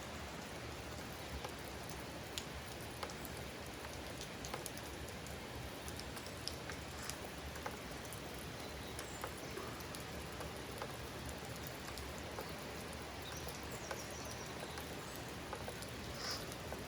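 Steady rain falling, an even hiss with scattered individual drops ticking sharply on nearby surfaces.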